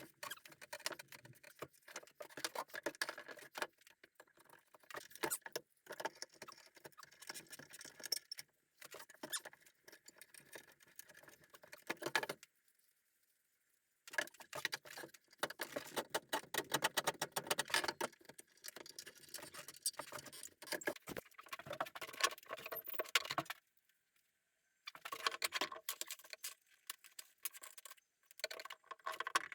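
Dense, rapid scratching and scraping, as of something rubbed or scraped over a surface, in stretches broken by brief dead-silent gaps near the middle and about four fifths of the way through.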